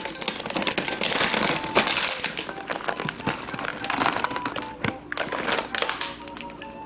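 Cat crunching and chewing Temptations treats, crunchy shells with a soft filling, in quick irregular crackly bites.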